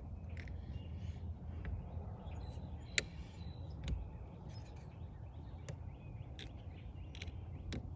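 Scattered light clicks and taps of a screwdriver working a snap ring onto a car's steering column, with one sharper click about three seconds in, over a low steady hum.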